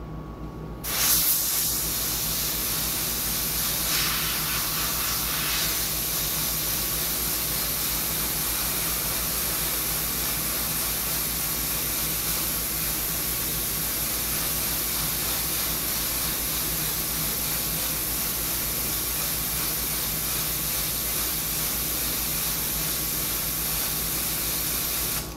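Iwata HP-CS airbrush spraying paint against a freehand shield: one long, steady hiss of air that starts about a second in and cuts off just before the end.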